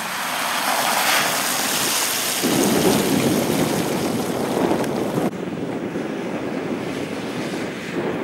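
Off-road 4x4s, a Mitsubishi L200 pickup and a Nissan Patrol, driving over snow and mud: engine and tyre noise with wind buffeting the microphone. A heavier low rumble comes in about two and a half seconds in, and the sound shifts abruptly again about five seconds in.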